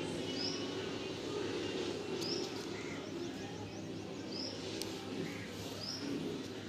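A bird chirping in the background, one short high chirp about every two seconds, over steady background noise. One sharp click comes a little after the middle.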